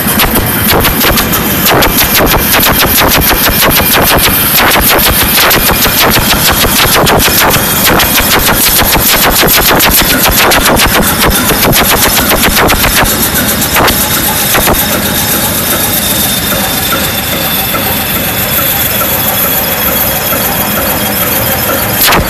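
Huge nine-cylinder diesel engine running loud, with a rapid, uneven volley of sharp exhaust firing beats. The beats thin out a little in the second half.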